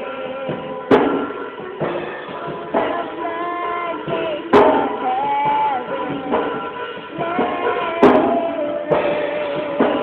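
A small child singing a worship song into a microphone over a backing track with drums. Three sharp clicks stand out, about three and a half seconds apart.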